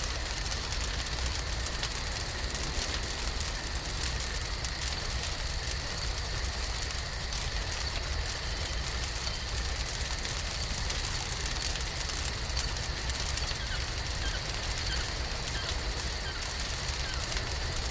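Wood fire crackling over a steady hiss, with two faint, constant high tones.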